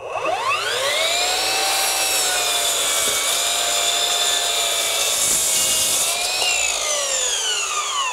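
Bosch PROFACTOR 18V Surgeon cordless glide miter saw's brushless motor, set to speed level 3 (4,000 RPM), spinning up with a rising whine from its soft start. Its blade then cuts steadily through a 2x12 board. The whine falls away as the motor winds down near the end.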